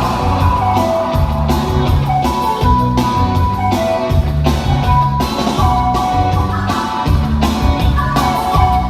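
Rock music with electric guitar, bass and drum kit playing at a steady beat.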